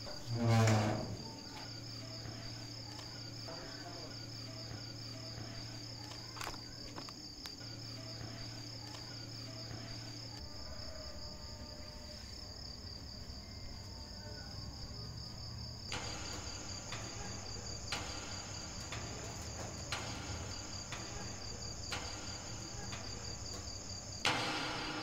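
Crickets trilling steadily. About half a second in, a loud tone slides quickly down. A low steady hum runs under the first ten seconds, and from about two-thirds of the way through there are soft knocks about once a second.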